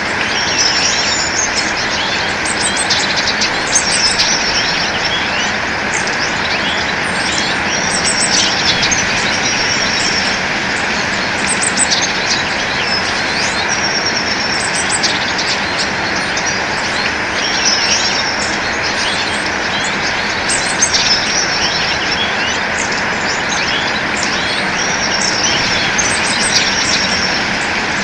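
Several birds chirping and trilling, with short high whistled notes and rapid trills repeating every second or two, over a steady rushing background noise.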